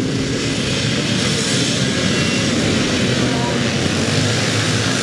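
A pack of vintage motocross motorcycles with their engines revving together as they start a race and pull away from the start line.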